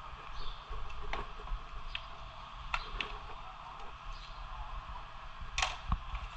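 Handling noise as paper and car trim are worked by hand: a few sharp clicks and taps, then a louder crackling rustle of paper near the end, over a steady background hum.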